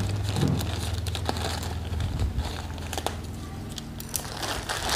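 Plastic courier mailer bag crinkling as it is cut open with scissors and handled, with scattered sharp clicks.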